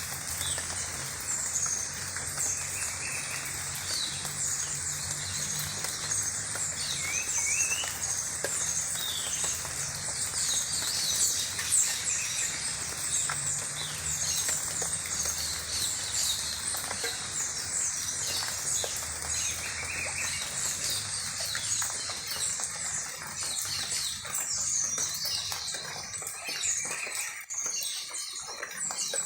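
Many small birds chirping at once in a dense, continuous chorus of short high calls.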